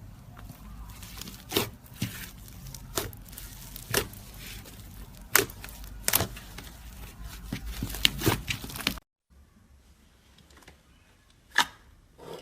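Slime being poked and squished by hand, giving sharp crackling pops about once a second. The background drops away suddenly about nine seconds in, and one more pop comes near the end.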